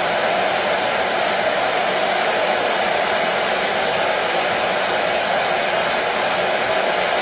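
Washing machine running with a steady, unchanging noise, no knocks or rhythm.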